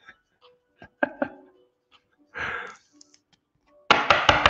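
Handling noise of trading cards and plastic card sleeves and top loaders: a few light clicks and taps, a brief rustle, then a quick cluster of sharp plastic clicks near the end.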